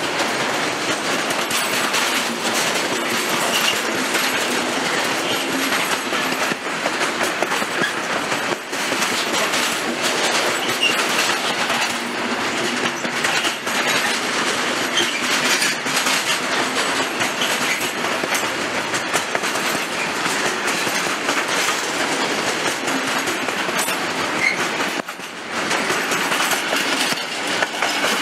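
Train running along the track, a steady dense rolling noise with wheel clatter, dipping briefly about three-quarters of the way through.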